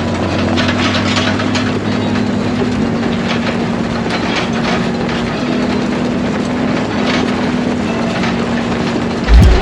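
Farm machinery running steadily: a constant engine hum with a held tone, overlaid with many small irregular rattles and clicks.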